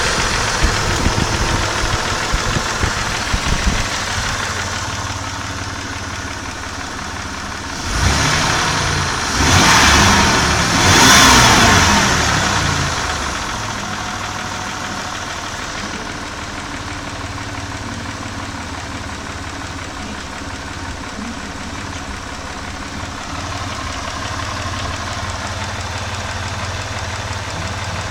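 Mitsubishi 6G74 V6 engine idling with a knock, the fault the owner is recording. It is revved briefly three times about eight to twelve seconds in, then settles back to a steady idle.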